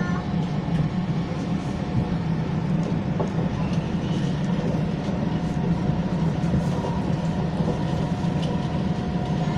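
Siemens C651 metro train running at a steady speed: an even rumble with a faint steady whine over it.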